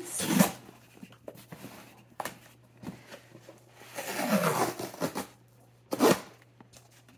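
Cardboard Priority Mail box being handled and turned on a cork desk: scattered light knocks and scrapes, with short rustles near the start, around four seconds in, and a sharper scrape about six seconds in.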